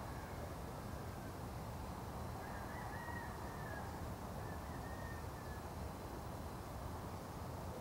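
Steady low rumble of a distant city at night, the far-off hum of traffic spread across the valley. A faint, wavering high tone comes and goes in a few short stretches around the middle.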